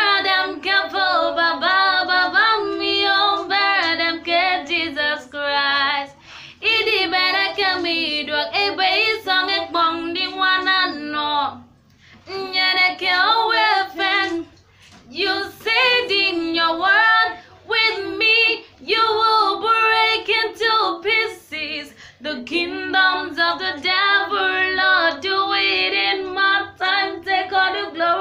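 A woman singing solo and unaccompanied, in sung phrases broken by a few short pauses for breath.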